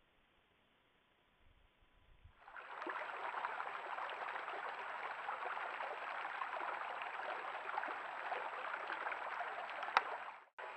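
Near silence for about two seconds, then a small rocky creek running: a steady rush of flowing water. A single sharp click near the end.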